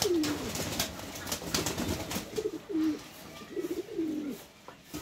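Domestic pigeons cooing again and again, each coo a short falling call, while birds bathing in a basin of water splash and flap their wings.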